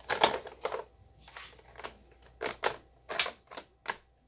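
Hard plastic parts of a Nerf blaster clicking and rattling as a scope is fitted onto it: a run of sharp clicks and knocks, the loudest just as it begins.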